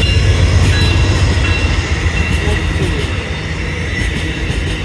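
Amtrak Cardinal passenger train approaching on the rails: a steady, loud, deep rumble from the diesel locomotive and wheels, with faint high tones above it, easing slightly toward the end.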